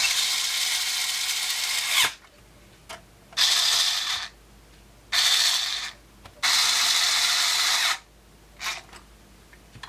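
Cordless electric screwdriver driving screws into an oscilloscope's sheet-metal cover. The motor runs four times, the first for about two seconds and the others for about a second each, with a brief blip near the end.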